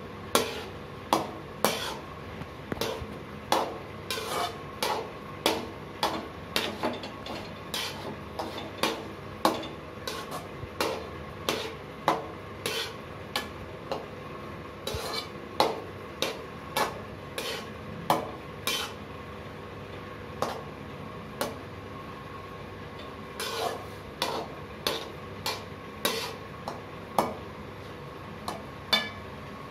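Metal spatula scraping and knocking against a large aluminium pot as cooked rice is stirred into egg masala for egg fried rice: about one to two clinks a second, each with a short metallic ring, pausing briefly about two-thirds of the way through.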